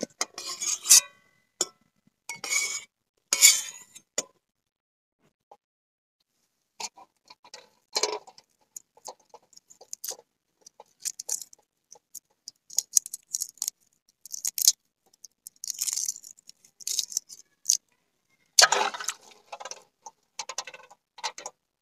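A metal spatula clinks and scrapes against an aluminium pot and a steel plate as boiled cauliflower is lifted out, over the first few seconds. After a short pause, boiled eggs are peeled: many small, sharp crackling clicks of eggshell breaking off, with a louder cluster near the end.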